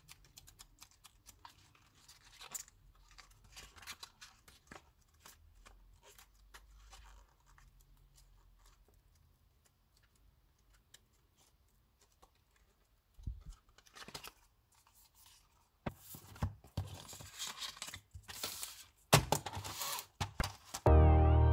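Packaging being handled and torn open: scattered small clicks and rustles, a quieter lull, then louder tearing and crinkling over the last few seconds.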